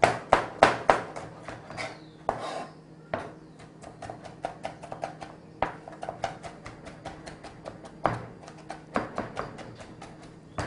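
Chef's knife chopping green onions on a cutting board: a quick, even run of knife strikes, about four or five a second, the loudest in the first second.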